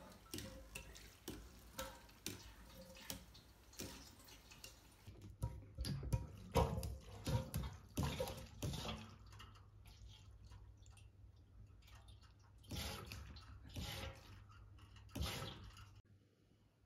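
Kerosene being transferred with a hand siphon pump into a kerosene heater's tank. The pump's bulb is squeezed in a steady rhythm at first, then the fuel gurgles and splashes in bursts as it runs through the hose into the tank.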